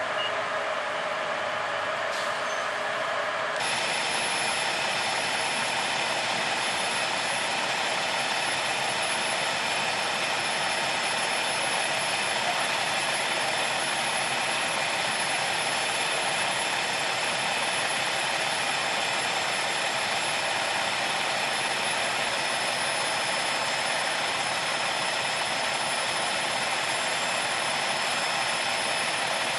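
Fire trucks' diesel engines running steadily, an even engine noise with a faint high whine; it becomes fuller and brighter a few seconds in.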